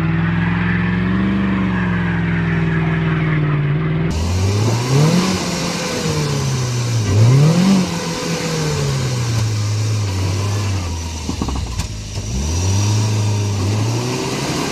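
An old pickup truck's engine held at steady high revs as its rear wheel spins on a wet concrete ramp. After a cut about four seconds in, a UAZ cab-over flatbed truck's engine revs up and drops back several times as the truck works its way through deep mud.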